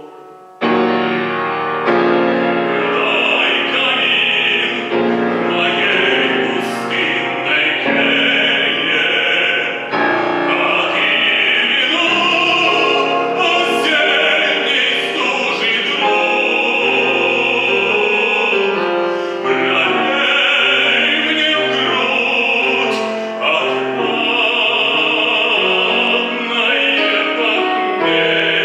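An operatic solo singer sings a Russian art song in a classically trained style, accompanied by piano. The music is loud and continuous, entering after a brief lull at the very start.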